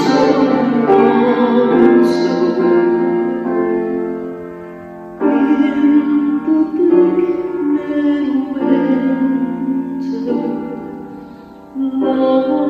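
Live performance of a slow carol: a grand piano with a woman's singing voice, in a reverberant church. The chords fade away twice and fresh ones start after each fade.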